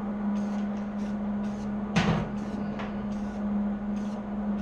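Aerosol spray paint can hissing in short bursts over a steady low hum, with a sharp knock about two seconds in and a lighter one shortly after.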